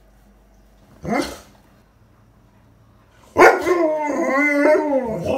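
Alaskan malamute vocalising: a short rising yelp about a second in, then a long, wavering howl-like 'talking' call starting about three and a half seconds in, its pitch bending up and down.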